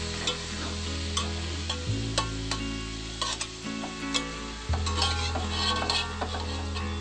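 Metal slotted skimmer and spatula scraping and clinking against an aluminium wok in short irregular clicks while the hot oil keeps sizzling, as fried chicken liver and gizzards are scooped out to drain. Background music plays underneath.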